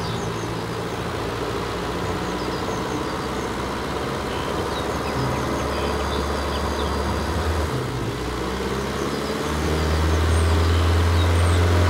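Heavy diesel trucks driving by: a steady low engine drone that grows louder in the last few seconds.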